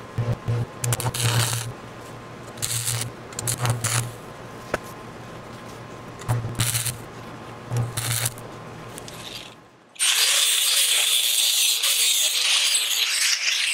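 Stick welder arc crackling and buzzing in a string of short bursts as a mild-steel pipe ring is welded onto an auger bit. About ten seconds in, an angle grinder's cut-off wheel starts cutting through mild-steel pipe with a loud, steady hissing noise.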